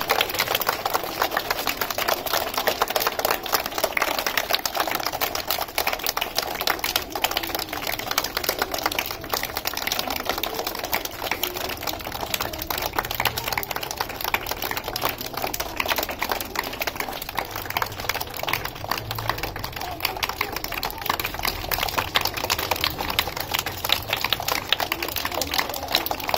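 A group of people clapping their hands, a dense, even run of claps that keeps up without a break.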